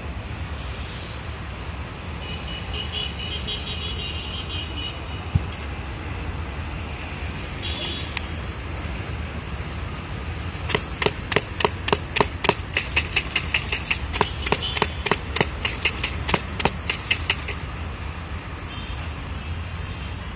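Jhal muri mix being shaken and worked in a plastic cup: a quick run of sharp rattling knocks, about four or five a second, lasting several seconds from about ten seconds in, over a steady rumble of street traffic.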